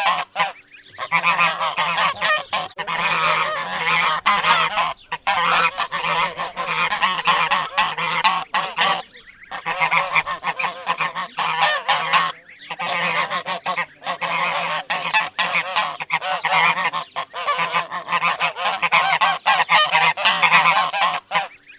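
Geese honking over and over in rapid, overlapping calls, with a few short pauses between bouts.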